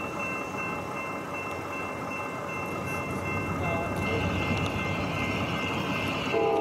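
Approaching freight train led by two Norfolk Southern GE C44-9W diesel locomotives: a steady rumble that slowly grows louder, with the lead locomotive's air horn starting just before the end.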